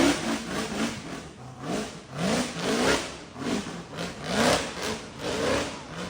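Vehicle engine revving in short repeated bursts, its pitch rising with each burst and dropping back, about once or twice a second.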